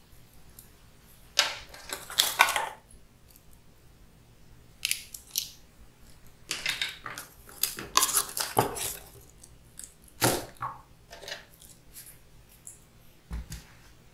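Cardboard packaging and a flat LAN cable being handled during unboxing: irregular rustling and scraping of the box flaps and foam insert, with small clicks, in several bursts, and a dull thump near the end.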